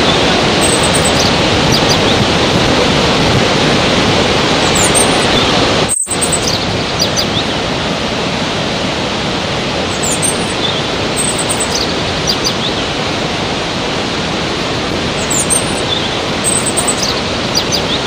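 Waterfall rushing: a loud, steady noise of falling water, with birds chirping now and then above it. The sound cuts out for an instant about six seconds in.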